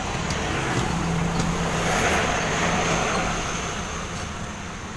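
Highway traffic: a vehicle passing, its engine and tyre noise swelling about two seconds in and then fading away, with a couple of faint clicks.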